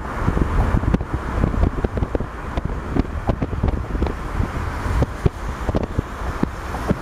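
Road and traffic noise from a moving taxi: a steady low rumble with wind buffeting the microphone in many short gusts.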